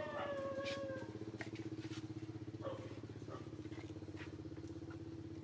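Small engine running steadily, a low, fast-pulsing hum that carries through. In the first second a young macaque's short squeal falls slightly in pitch over it.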